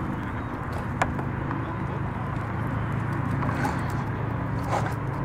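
A steady low hum, with one sharp click about a second in.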